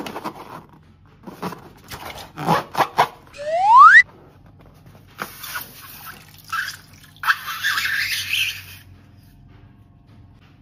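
A slime-filled rubber balloon squeezed in the hands, with short squishy rustles and one loud rising squeak about three and a half seconds in. Then the balloon is cut open and its slime squeezed out into a dish, with wet squishing noise.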